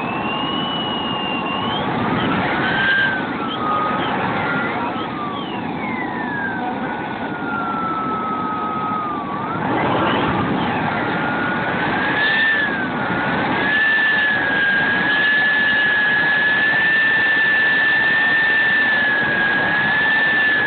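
Model jet turbine engines whining: several high whines slide up and down in pitch and cross one another, then one settles into a steady high whine about two-thirds of the way in, over a broad rushing noise.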